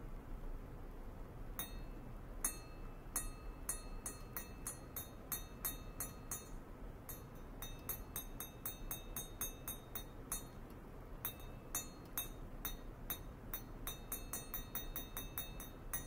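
Light metallic clinks of a thin metal rod against a metal plate. Each clink rings briefly at the same few pitches. They start about a second and a half in and come irregularly, in quick runs of several a second, with two short pauses.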